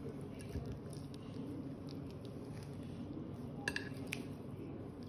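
Fork and knife cutting through air-fried chicken on a ceramic plate: soft scraping and small clicks, with a sharp ringing clink of metal on the plate about three and a half seconds in and a lighter one just after.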